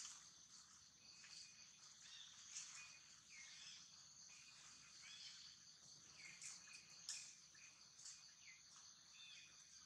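Faint outdoor ambience: a steady high insect chorus with scattered short bird chirps.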